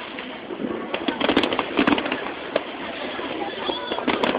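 Aerial fireworks bursting: irregular bangs and crackles, several a second at times, over a steady background din.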